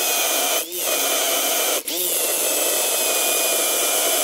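Electric drill running a step bit that bores out the metal centre of an old suspension bushing. It runs steadily with a whine, with two brief dips, one under a second in and one just short of two seconds in, where the motor slows and then speeds back up.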